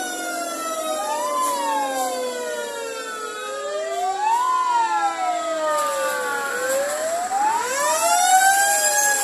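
Fire truck sirens wailing, several at once, each rising and falling slowly in pitch. The sound grows loudest near the end as a fire truck passes close by.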